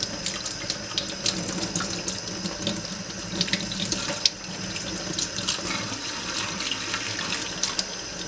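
Tap water running steadily into a stainless steel sink, splashing over hands that are peeling the skin off a squid fin, with many small wet splatters and one sharper tick about halfway through.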